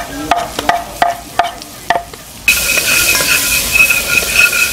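A metal spoon taps sharply several times against a wooden cutting board and the pot as chopped onion and green seasoning are scraped into hot oil in a cast-iron pot. About halfway through, a loud sizzle starts suddenly as the seasoning fries and is stirred.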